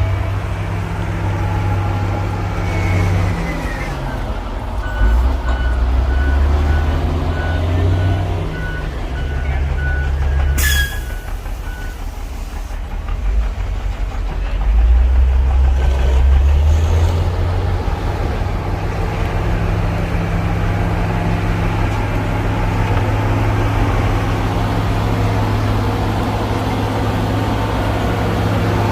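Heavy diesel engine of a motor grader running, its pitch rising and falling with load. A reversing alarm beeps evenly from about five seconds in to about twelve. A short sharp hiss comes about eleven seconds in.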